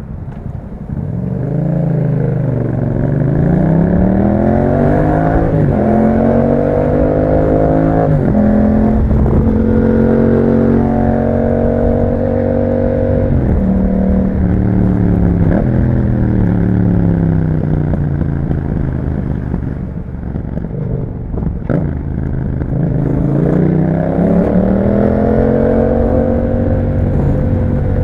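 2021 Yamaha MT-07's parallel-twin engine through an Akrapovic exhaust, accelerating up through the gears: the pitch climbs and drops at each upshift, then holds steady. It then falls away slowly as the throttle is rolled off, and climbs again on a second pull. There is one short sharp click just before the second pull.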